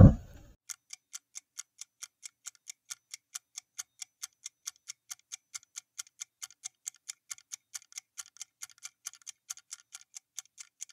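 Clock-ticking sound effect for a quiz countdown timer: short, even ticks at about four a second, marking the time allowed to answer.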